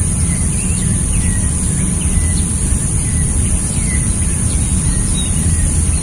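Wind buffeting the microphone as a steady low rumble, with small birds giving short chirps, a couple a second, over a constant high hiss.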